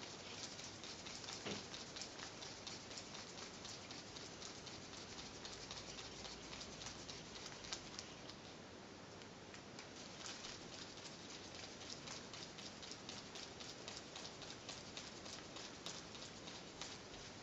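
Faint, dense patter of small irregular clicks and rustles as a screwdriver turns cross-head screws into an aluminium pit bike oil pump cover held in gloved fingers, with a slightly louder click about a second and a half in.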